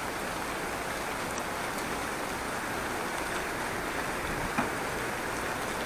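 Steady rain falling, an even hiss with no letup, with a faint click about four and a half seconds in.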